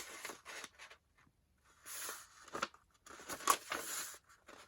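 Sheets of dried paper being handled and folded by hand: rustling and crinkling in three short spells, with a near-silent gap about a second in.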